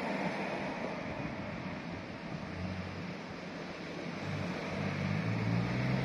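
Road traffic on a town street: a steady rush of tyre and traffic noise, with a car's engine hum coming in about halfway and growing louder toward the end as it drives up and past.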